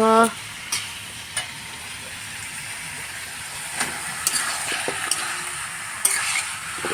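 Meat frying in a pan with a steady sizzle while it is stirred, with a few sharp clicks and knocks from the stirring.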